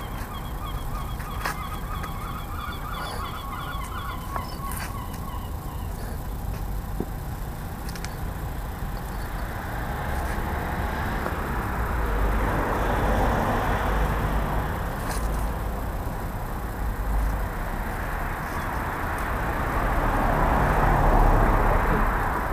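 A bird calls in a quick run of repeated honking notes over the first few seconds. After that, a broad rushing noise swells and fades twice, loudest near the end.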